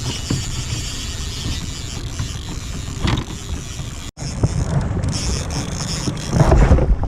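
A boat running under way, its motor rumbling beneath wind buffeting the microphone. The sound cuts off abruptly about four seconds in, then resumes, with heavier low buffeting near the end.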